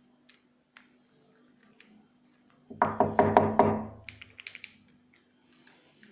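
A rapid run of about eight sharp knocks within a second, followed by a few lighter clicks.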